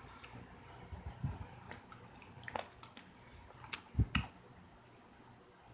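A person chewing crunchy dessert close to the microphone: scattered crunches and wet mouth clicks, the loudest pair about four seconds in.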